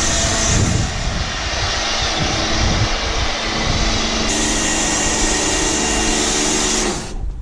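Pressure washer running and spraying, a steady hiss of water over a constant motor hum; the spray cuts out near the end.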